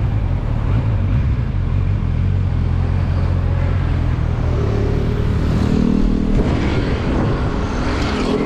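Kawasaki Versys 1000's inline-four engine running as the motorcycle rides along a road, heard from the rider's position. A higher engine note joins about halfway through, and a rush of road noise grows near the end.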